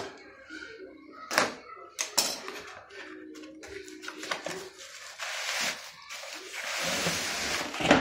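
Packaging being handled: two sharp knocks against a cardboard box, then a long rustle of cardboard and plastic wrap as a wrapped ceiling-fan blade is slid out of its box.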